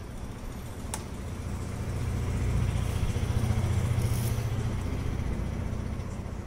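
A motor vehicle's low engine rumble swells over a few seconds and then eases off, with a single sharp click about a second in.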